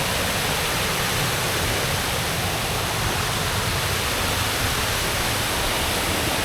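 Mountain-river waterfall rushing in a loud, steady roar of white water.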